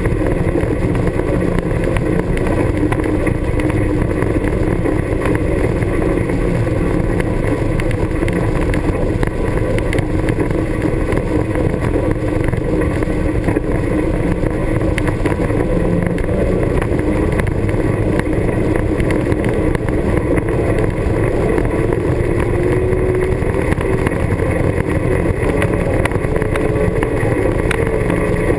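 Honda Pioneer 1000 side-by-side's engine running steadily under way on a rough dirt trail. Its pitch edges up a little in the last few seconds.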